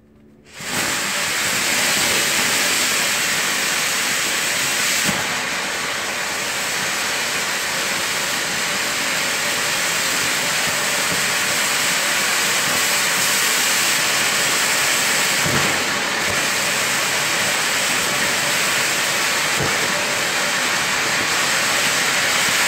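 Homemade titanium fountain firework (black powder mixed with titanium powder) catching suddenly about a second in and then burning with a loud, steady hiss as it sprays burning titanium sparks, with a few faint pops along the way.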